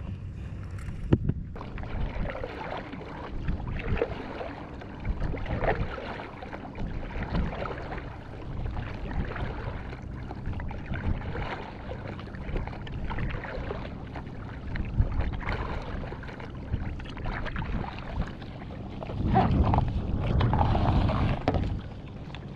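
Paddle strokes on a stand-up paddleboard: the blade sloshing and dripping in the water about every one and a half to two seconds, over a low wind rumble on the microphone. A longer, louder splashing stretch comes near the end.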